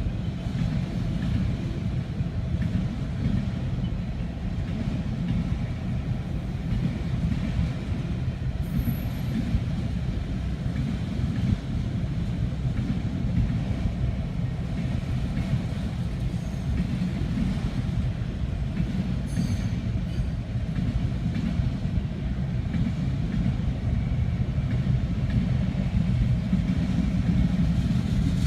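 CSX autorack freight train rolling past, its cars making a steady low rumble.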